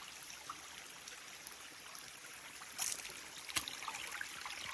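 Faint, steady trickle of running water, with a short sharp noise a little past halfway and a click just after it.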